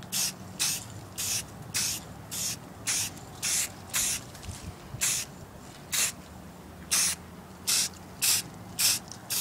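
Aerosol spray-paint can giving short, separate bursts of hiss, about two a second with a couple of brief pauses. These are light misting passes of brown paint over a taped PVC bow limb for a camouflage finish.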